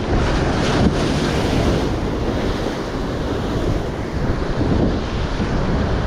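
Ocean surf breaking and washing over jetty rocks, with wind buffeting the microphone.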